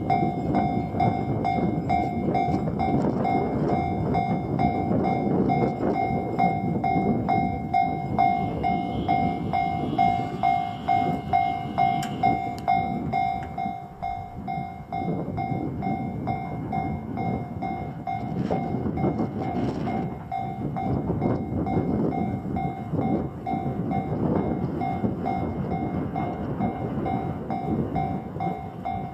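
Electric train passing over a Japanese railway level crossing, with a heavy rumble of wheels on the rails that swells and fades in a rough rhythm. Throughout, the crossing's electronic warning bell rings in a steady, repeating clang.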